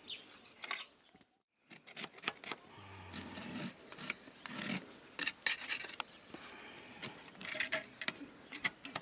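Wood being worked by hand: uneven rasping and scraping strokes mixed with light clicks and knocks, broken by a brief silent gap about a second in.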